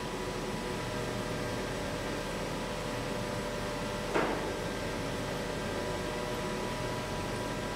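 Small electric motor and electronics of a kinetic light sculpture turning an acrylic cylinder: a steady hum with several steady tones, with one short click about four seconds in.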